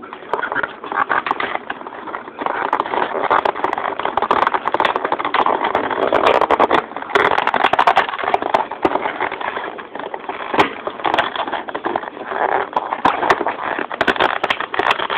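Packaging being worked at close to the microphone as a boxed model car is pried out: continuous rustling and scraping with many sharp clicks and knocks.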